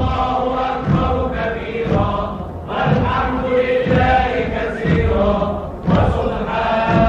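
Voices chanting together in Arabic, holding long sung notes, over a low drum-like thud about once a second.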